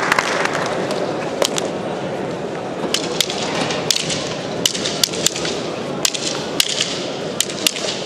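Matrag fighting sticks striking each other in sparring: about a dozen sharp clacks at irregular intervals, some in quick pairs, over the steady murmur of a crowd in a large hall.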